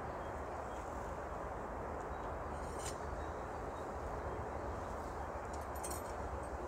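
Faint metallic clicks from a homemade metal tripod's legs being spread and adjusted by hand, a couple of times, over a steady background hiss.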